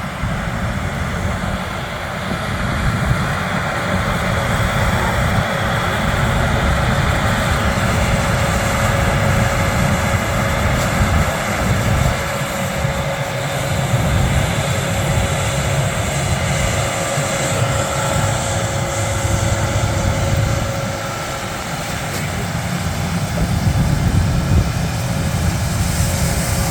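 Combine harvesters running in standing corn: a steady, heavy diesel and machinery rumble with a faint whine on top, easing a little near the end.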